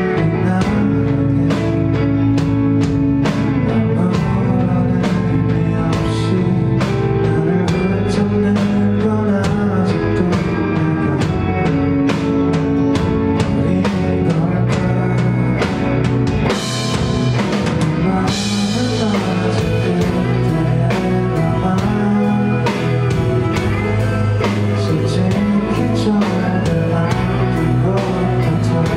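Live rock band playing a song: drum kit keeping a steady beat under electric guitar and bass, with a male lead vocal. The cymbals swell a little past halfway.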